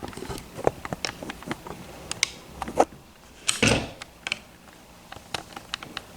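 Small metal lock parts clicking and tapping as a disassembled lock is handled with tools, in irregular light ticks, with one louder handling bump about three and a half seconds in.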